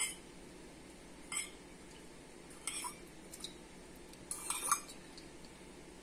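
Metal teaspoon clinking against a metal kadai as spoonfuls of sesame oil are added: a few separate light clinks, then a short run of clinks about four and a half seconds in.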